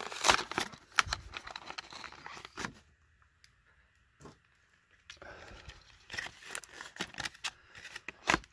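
Clear plastic blister pack being pried and torn off its cardboard backing card by hand, with crinkling plastic, tearing card and sharp cracks. The handling pauses for a couple of seconds in the middle and resumes, ending in a loud crack of plastic.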